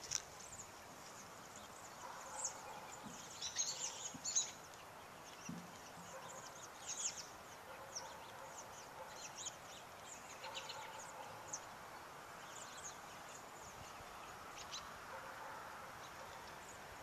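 A large flock of American robins calling as it flies overhead: many short, thin, high calls, often falling in pitch, scattered throughout and thickest about four seconds in, over a faint steady background noise.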